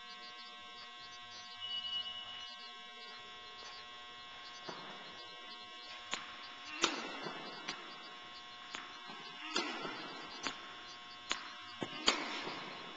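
Tennis racquet striking the ball on forehand groundstrokes, with the ball bouncing on the hard court: a string of sharp pops, about one a second from nearly five seconds in, echoing in the indoor hall. A steady electrical hum runs beneath.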